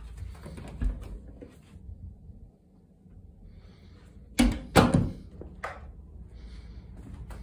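A wooden door being handled, with two sharp knocks about half a second apart a little past the middle and a fainter one shortly after.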